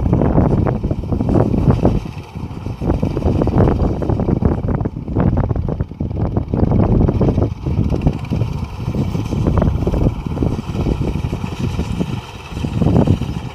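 Engine of a rice harvesting machine running in a paddy field, its uneven low rumble mixed with wind buffeting the microphone.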